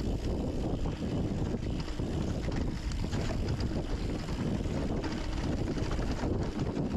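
Mountain bike rolling along a rough dirt trail: steady wind rush on the microphone, with the tyres and bike rattling over rocks and roots in short clicks throughout.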